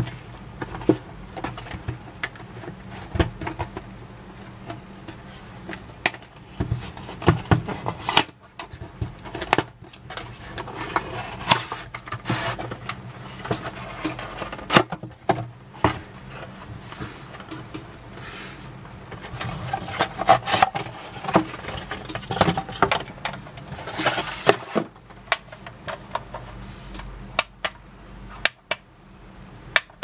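Cardboard packaging and a plastic power strip being handled during unboxing: rubbing and scraping with scattered sharp clicks and knocks, and a longer rustle about three quarters of the way through.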